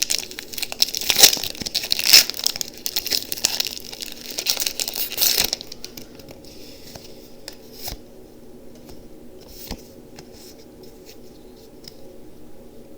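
A foil Pokémon TCG booster pack wrapper being crinkled and torn open for about five seconds, then fainter rustling and a few light ticks.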